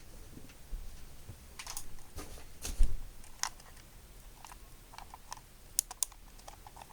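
Handling noise on a 12-string guitar: scattered light clicks and taps, with one louder knock about three seconds in.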